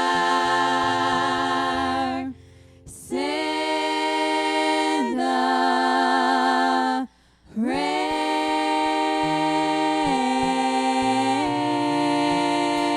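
Closing of a gospel song: voices hold long sustained notes with vibrato over a low bass accompaniment, in three long phrases broken by two short pauses, about two seconds in and seven seconds in.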